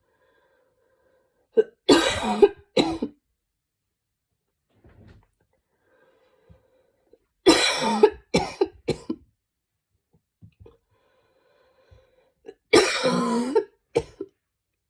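A woman's barking cough, in three bouts about five seconds apart, each a loud cough followed by one or two shorter ones, as she tries to cough up mucus. Faint breathing can be heard between the bouts.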